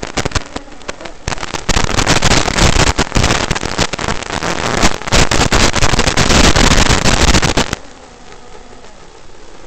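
Loud crackling static hiss from about two seconds in until near the end, typical of an analog FPV video link breaking up, over the faint buzzing whine of a micro FPV drone's motors.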